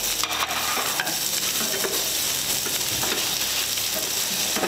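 Carrot and chayote sticks sizzling in olive oil in a non-stick frying pan, stirred with a slotted spatula that scrapes and clicks against the pan now and then over a steady frying hiss.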